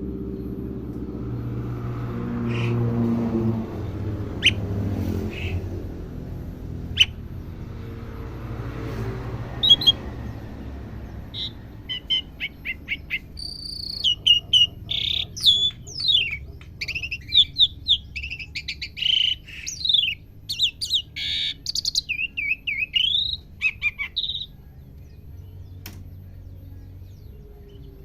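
Asian pied starling calling: a few scattered single chirps over a low rumble, then from about twelve seconds in a rapid run of chirps, whistles and sharp down-slurred notes that stops about twenty-four seconds in.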